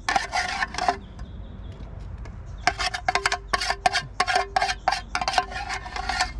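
Metal spoon scraping and clinking inside a steel mess tin as food is pushed out onto a stainless steel plate: a brief flurry of scrapes right at the start, then a quick run of taps and scrapes through the second half, with a faint metallic ring.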